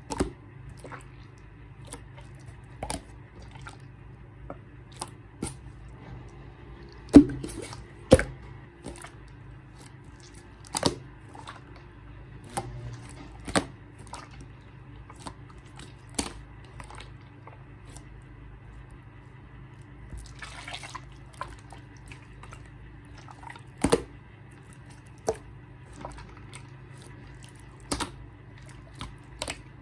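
Clear slime being worked by hand, giving irregular wet pops and clicks. A few are louder, about 7, 8 and 24 seconds in. A faint steady hum runs underneath.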